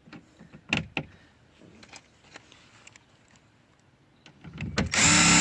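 Two light clicks about a second in, then a cordless impact driver running in a short loud burst near the end, spinning a speaker-mounting screw that the user thinks is too short to hold.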